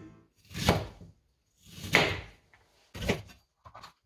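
Chef's knife cutting through onion and knocking on a plastic cutting board: three slow, separate cuts about a second apart, then two lighter quick ones near the end.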